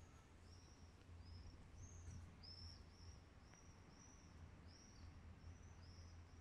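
Faint calls of a small bird: a short, high chirp repeated about twice a second, over a low steady hum.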